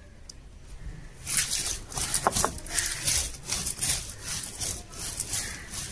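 Cylindrical stone roller of an ammi grinding stone rolled back and forth over dry-roasted whole spices (coriander seeds, dried red chillies), crushing them against the stone slab. The gritty strokes repeat from about a second and a half in; this is the dry stage of the grind, before any water goes in.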